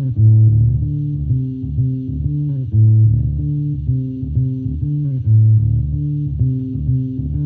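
Background music built on a low, repeating plucked line, its phrase coming round about every two and a half seconds.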